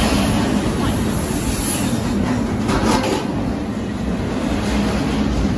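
Double-stack intermodal freight train rolling past close by: a steady rumble of steel wheels on rail, with a brief louder clatter about three seconds in.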